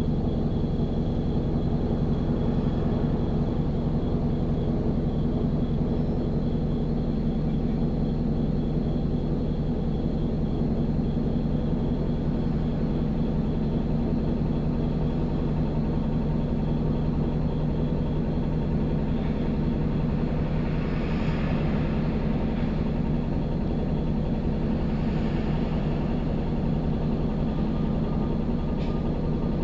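Isuzu Erga non-step city bus (2TG-LV290Q3) running, its diesel engine and drivetrain giving a steady low hum, with a faint higher-pitched hiss swelling for a few seconds past the middle.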